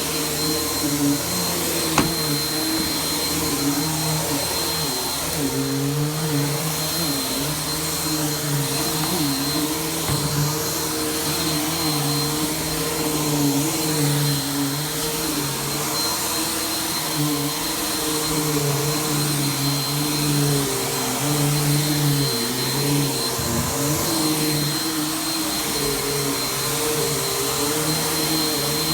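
Vacuum cleaner running on carpet, with a steady high whine over a motor hum whose lower tones waver in pitch. There is a brief click about two seconds in.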